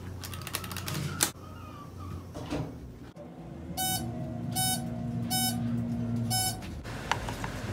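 Dover passenger elevator: a sharp click from the button panel, then the car hums steadily as it descends while its signal beeps four times, evenly spaced, about one beep every 0.8 s.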